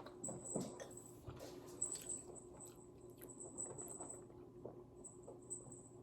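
Faint eating sounds close to the microphone: chewing, with small scattered clicks and mouth noises.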